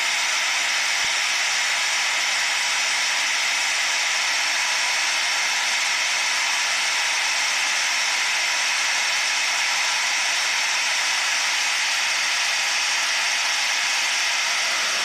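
Handheld electric drill running at a steady high speed, spinning a small PCB blank coated in wet photoresist ink inside a cardboard box: a steady, hissy whir as the drill serves as a makeshift spin coater to thin the ink to a smooth film.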